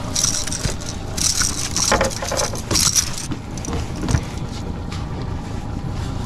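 Small boat under way at trolling speed: the steady run of its Honda 30 hp four-stroke tiller outboard with water and wind noise, and a light rattling over the first three seconds.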